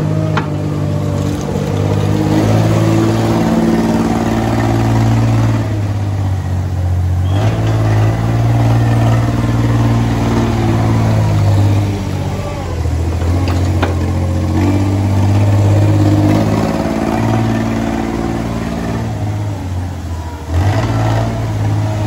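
Compact farm loader's engine running under load while it pushes slurry with a scraper blade, its engine speed rising and falling several times as the driver works the throttle.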